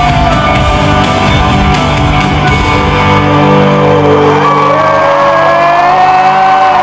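A live rock band playing in a large hall, with long held, sliding notes and the crowd shouting and whooping. The low end drops away about four seconds in.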